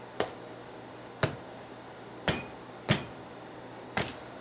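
A rubber stamp tapped down onto a paper journal page on a tabletop: five sharp taps at uneven spacing, about one a second.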